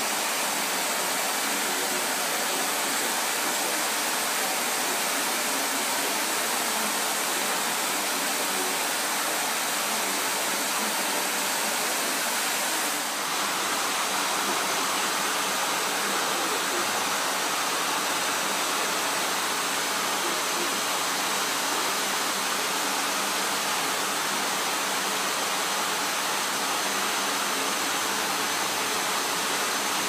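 Vacuum cleaner running steadily, a loud even rush of air drawn in at the hose nozzle, with a brief dip in level about halfway through.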